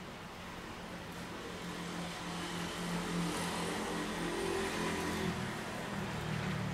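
A low, steady motor hum that grows louder over a few seconds and eases slightly near the end.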